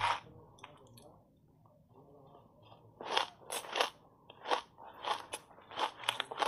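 Frozen ice coated in matcha powder being bitten and chewed, with a run of sharp, irregular crunches starting about three seconds in. A short click sounds at the very start.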